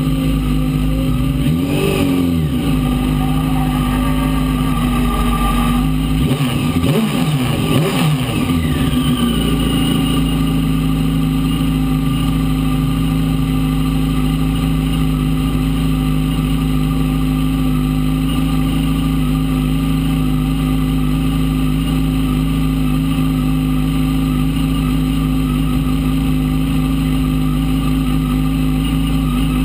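Fiat 600 prototype race car's engine heard from inside the cockpit, idling with a brief rev about two seconds in and several revs rising and falling between about six and nine seconds, then settling to a steady idle.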